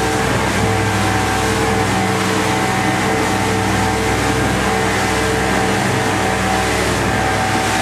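Boat engine running steadily, with a continuous rushing of wind and water.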